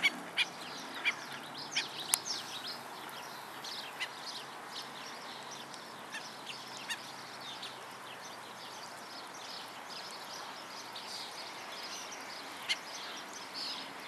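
Waterbirds calling: many short, sharp, high-pitched calls, thickest in the first few seconds and again near the end.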